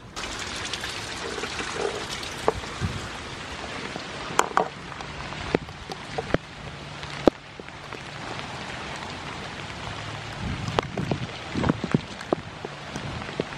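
Steady rain falling, with many single heavy drops striking close to the microphone as sharp ticks.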